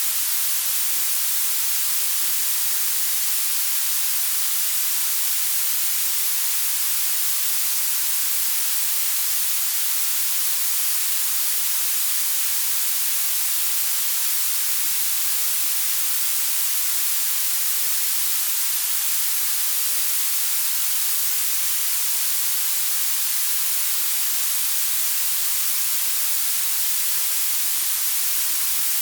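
Blue noise: a steady, unbroken hiss that grows louder toward the highest pitches, with almost no bass.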